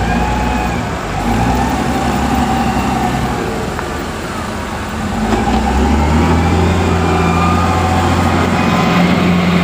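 Heavy diesel engine of a tractor or backhoe running steadily, then louder and heavier about five and a half seconds in, as if put under load.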